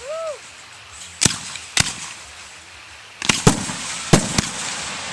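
Aerial fireworks bursting: two sharp reports about a second in, then a quick run of four from about three seconds, followed by a steady crackling hiss.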